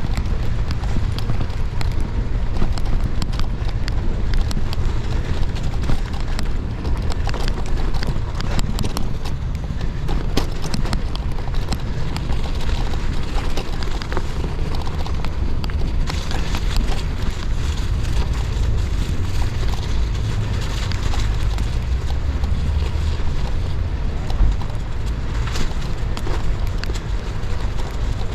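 Gravel bike tyres rolling slowly over snow and ice, a steady crackling crunch over a low rumble from the bike and wind on the camera.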